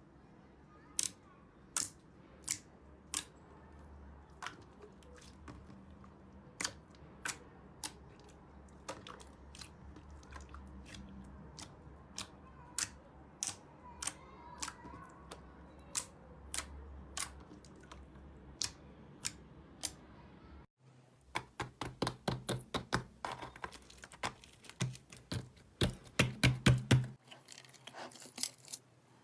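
Slime being squeezed and poked, making sharp popping clicks about every half second. After a cut about 21 seconds in, the popping and clicking comes faster and denser.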